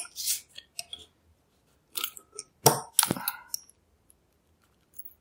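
Brady plastic lockout/tagout padlock being worked apart by hand: a series of small, sharp clicks and clinks of its metal and plastic parts, the loudest about two and three seconds in.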